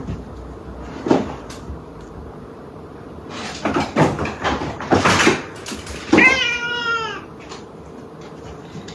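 A domestic cat meowing once, a drawn-out cry about six seconds in, with a few short rustling noises before it.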